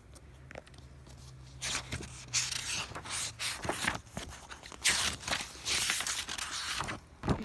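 Rustling and scraping handling noise, with scattered clicks, as a handheld phone is moved about over a fabric blanket; a short thump near the end.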